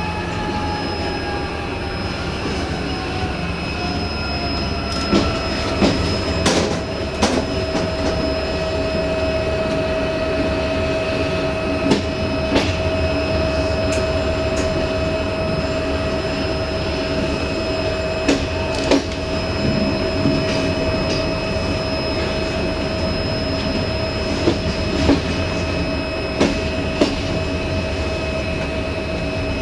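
Passenger train rolling along the track, heard from the rear of the last coach: a steady rumble of wheels on rail, sharp knocks at irregular intervals as the wheels cross rail joints, and a whine that slides down in pitch over the first few seconds and then holds steady.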